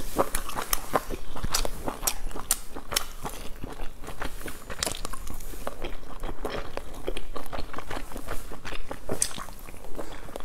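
Close-miked chewing of boiled dumplings, with many irregular sharp mouth clicks and smacks.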